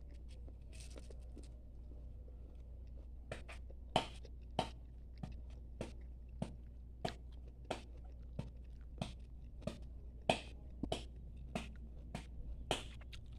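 Knife chopping into a hand-held coconut: a regular series of sharp knocks, about one every half second or so, starting a few seconds in and going on to near the end.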